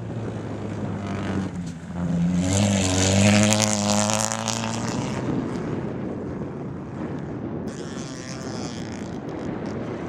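Rally hatchback's engine revving hard on a dirt autocross track, its pitch rising and falling as it passes close, loudest about three seconds in, then fading away into the distance.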